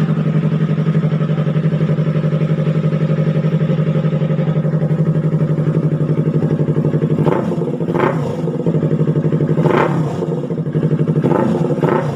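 Yamaha R3's 321 cc parallel-twin engine breathing through an SC Project aftermarket exhaust, loud: it idles steadily, then from about seven seconds in gets a handful of quick throttle blips that rise and drop back.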